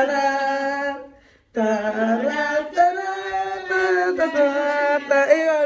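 A woman singing unaccompanied in long held notes that slide up and down, with a short break about a second in.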